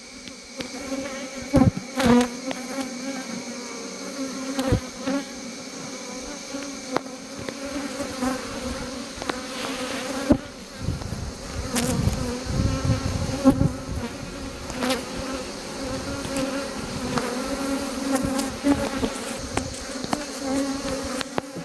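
Honeybees buzzing around an open hive: a steady, dense hum, with a few short knocks and clicks scattered through it.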